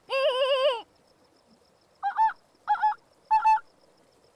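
A person imitating an animal's calls by voice: one long wavering call, then after a pause three short two-note calls in quick succession.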